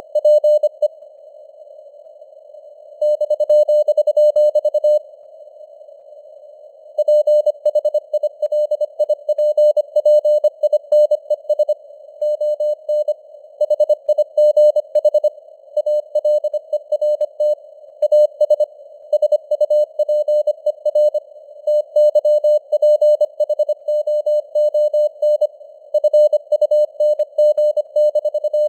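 Morse code (CW) sent at 25 words per minute: a single tone near 600 Hz keyed rapidly on and off in dots and dashes over a narrow band of hiss that simulates radio receiver noise. The keying pauses twice for about two seconds in the first seven seconds, then runs on without a break.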